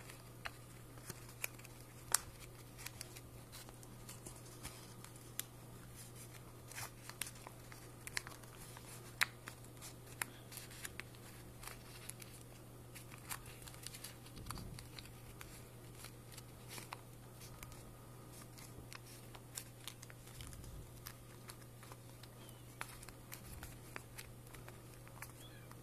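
Origami paper being folded and creased by hand: faint, irregular crinkles, taps and rustles. A steady low hum runs underneath.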